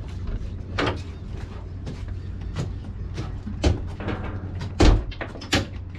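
A series of sharp knocks and clunks over a steady low hum, with one heavy thump about five seconds in.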